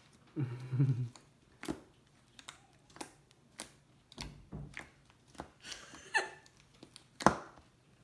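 Fluffy shaving-cream slime being squished and stretched by hand, giving irregular sticky clicks and pops.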